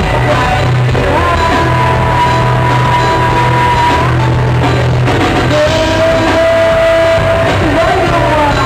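Live rock band playing with a singer holding long sung notes over a steady bass line and band accompaniment.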